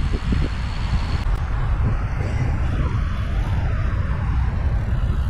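Steady low rumble of wind buffeting the microphone, mixed with road noise while moving along the road.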